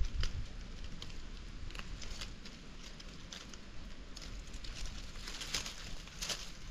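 Scattered light crackles and rustles of dry leaves and twigs, thickening a little near the end, over a low rumble of wind or handling on the microphone.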